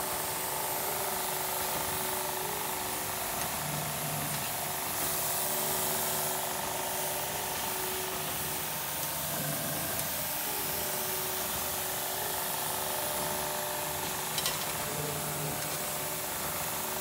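Spinforce RWM914 automated flatbed rug washing machine running: water and detergent spray hissing over the rug and rotating cylindrical brush, over a steady machine hum. Two light clicks near the end.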